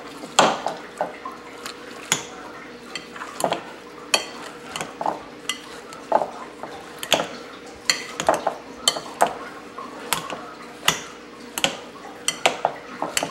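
Metal potato masher pressing boiled potatoes in a glass bowl, with repeated irregular clinks and knocks as it strikes the bowl and soft squashing between them.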